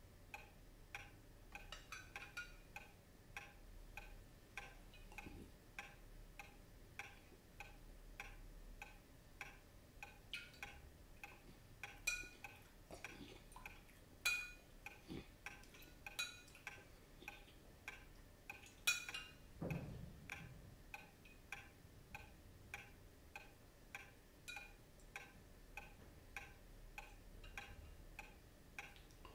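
A clock ticking steadily, about two ticks a second. A few sharper clinks come in the middle, and a dull thump follows just after them; the sharpest click is the loudest sound.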